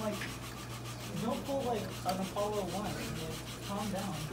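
Thin wooden model-airplane parts rubbing against each other as tail pieces are worked into their slots on the frame, over faint voices and a steady low hum.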